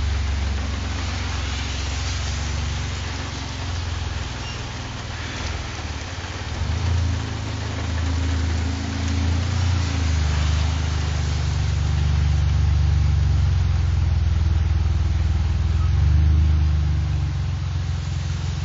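A van's engine running at low speed while it is backed up, its hum shifting in level a few times, over steady rain and wind hiss.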